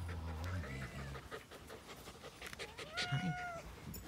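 Excited pet marble fox (a white colour phase of the red fox) making high calls that rise and fall in pitch: a faint short one about a second in, then a louder, longer one about three seconds in. Faint clicks run through it, and there is a low hum in the first half second.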